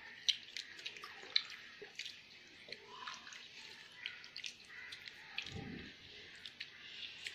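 Dry, roasted pumpkin leaves crackling and crinkling as fingers pick them apart on a plate: scattered small sharp clicks, the loudest two near the start.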